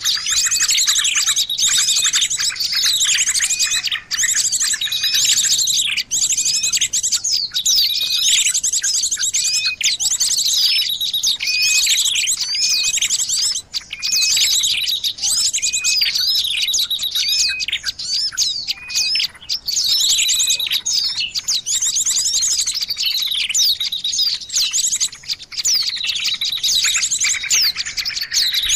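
Small songbirds chirping and trilling all at once: dense, high-pitched rapid trills and short falling chirps that overlap and repeat without pause. This is a bird-lure call recording, played to draw small wild birds in.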